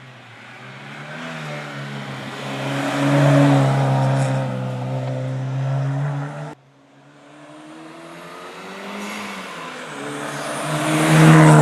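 Hill-climb race car engine under hard acceleration, growing louder as it comes near and passes. The note shifts with the gear changes. It cuts off abruptly about two-thirds of the way through, and a second race car then builds up to its loudest just at the end.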